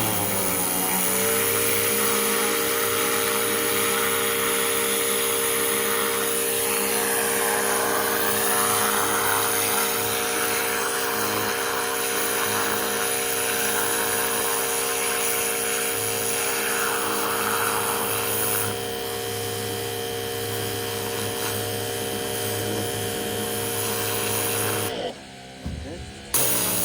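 Pressure washer running steadily, its motor holding one pitch under the hiss of the spray. The pitch rises as it comes up to speed at the start, and near the end it dips and goes quieter for a second or two before picking up again.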